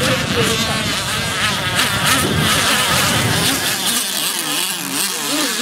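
Radio-controlled racing catamaran boats buzzing at speed across the water, a high, insect-like whine whose pitch wavers up and down as they race and turn.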